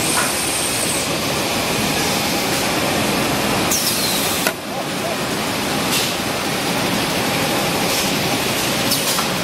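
Semi-automatic multi-roll toilet-paper packing and sealing machine running, with steady mechanical noise. About four seconds in, a short loud hiss of compressed air from its pneumatic cylinders cuts off abruptly.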